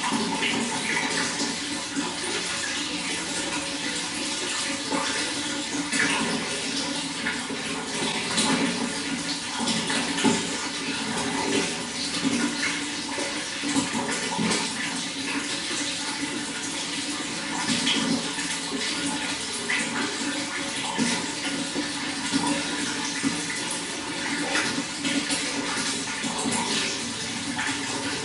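Running water flowing steadily, a continuous splashing and gurgling full of small drips and splashes.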